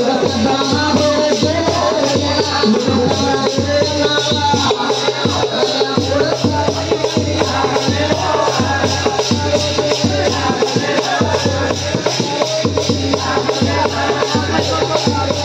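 Amplified devotional folk song: a man singing into a microphone over a steady, evenly repeating drum beat and jingling shaker percussion.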